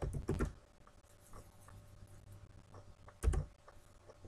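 Computer keyboard being typed on: a few quick keystrokes at the start, scattered faint key taps, and one louder, heavier knock a little after three seconds.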